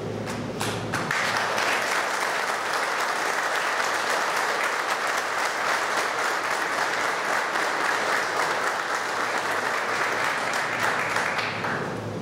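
Audience applauding: a few scattered claps in the first second, then steady applause that dies away near the end.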